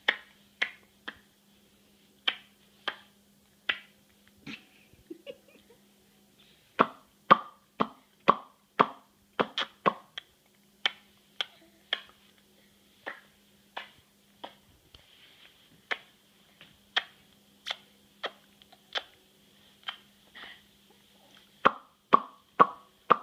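A baby making a repeated popping click with her mouth: short sharp pops, more spaced out at times and coming in quicker runs of about two a second near the middle and near the end.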